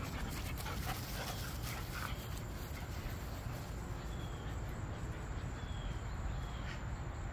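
German Shepherd dogs playing over a ball toy, giving a few short whines in the first two seconds.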